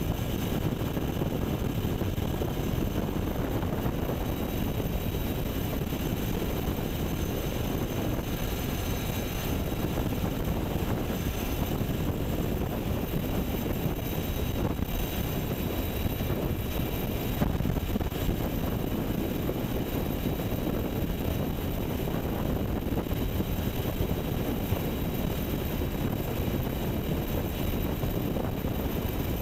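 UH-60 Black Hawk helicopter in flight, heard from on board: a steady rush of rotor and twin turboshaft engine noise, with thin, steady high-pitched whines above it.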